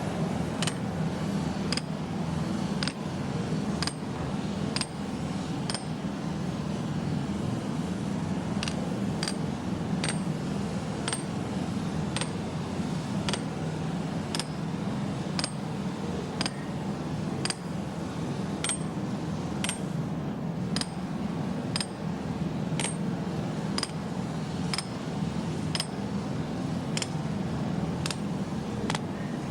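Light, sharp metallic clicks with a thin ring, repeating fairly regularly at about one to two a second over a steady low hum.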